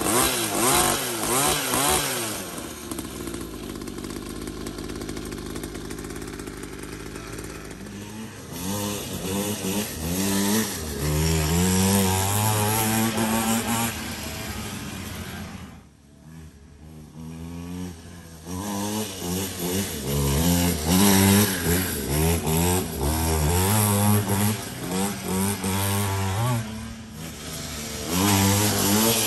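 A 49cc two-stroke mini dirt bike engine, buzzing like a chainsaw, revving up and falling back again and again while the bike is ridden. It runs steadier for a few seconds near the start and goes briefly quieter about halfway through.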